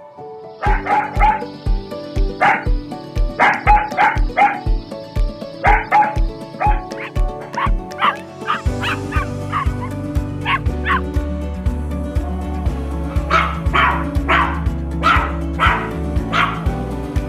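Dog barking and yipping over background music with a steady beat.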